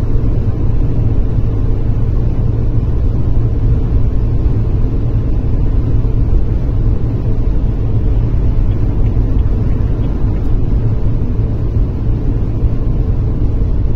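Car driving at highway speed, heard from inside the cabin: a steady low rumble of engine and tyre noise.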